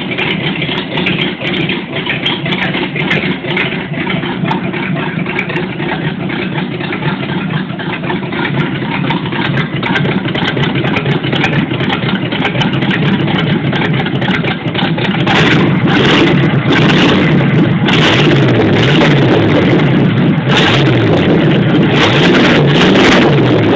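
1975 Chevrolet Nova's engine running steadily, then from about two-thirds of the way in revved up and down again and again, rising and falling in pitch.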